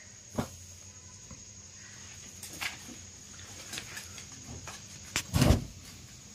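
Handling noises as garments are moved: scattered soft clicks and fabric or plastic rustles, with a louder rustle and thump about five seconds in. A faint steady high whine sits underneath.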